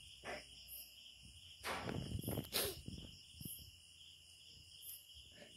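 A crying woman's sniffs and shaky breaths, a few short ones a couple of seconds in, over crickets chirping steadily in the background.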